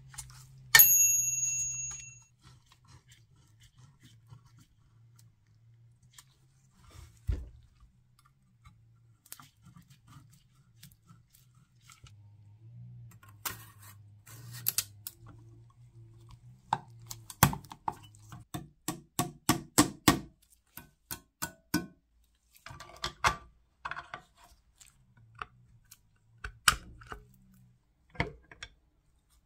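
Metal parts of a clock movement being handled and fitted: one ringing metallic clink about a second in, like a small steel cup or bell struck, then scattered knocks and a quick run of sharp clicks in the middle.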